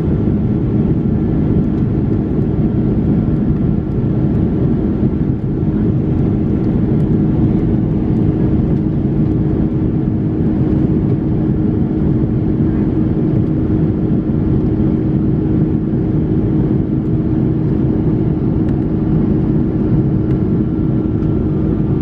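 Airliner cabin noise beside the wing of an Airbus A330-243 in flight: its Rolls-Royce Trent 772B turbofans and the rushing airflow make a steady loud drone, with a constant low hum and a faint high whine.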